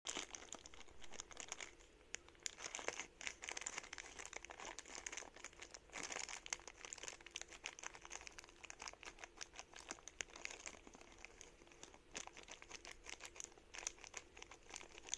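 Crinkling and rustling, dense with small irregular clicks.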